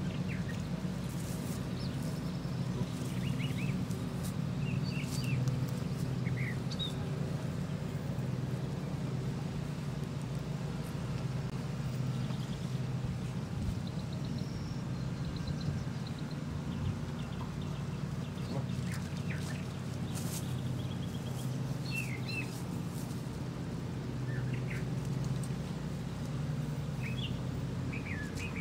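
Birds chirping in short, scattered calls over the steady low drone of a motor.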